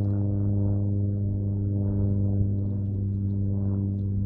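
Airplane engine droning overhead: a steady low hum with a stack of overtones that swells slightly every second or so, holding the same pitch.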